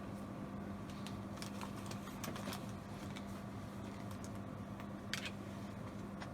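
Scattered light clicks and taps, like handling or keys, over a steady low hum from the running computer.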